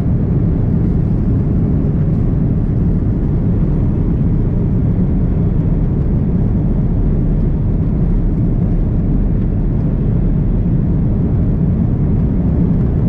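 Steady low rumble of a large jet airliner heard from inside the cabin as it moves along the ground before takeoff: engine and rolling noise, even in level throughout.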